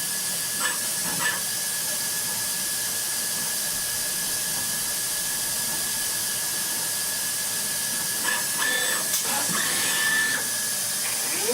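CNC metal lathe running with a steady hiss and a thin, steady high whine, with a few light clicks about a second in and again about eight to ten seconds in.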